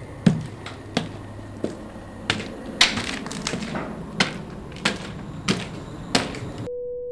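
A slow series of sharp knocks, about one every two-thirds of a second, with a brief flurry of lighter clicks in the middle. Near the end it cuts off abruptly into a steady pure electronic tone.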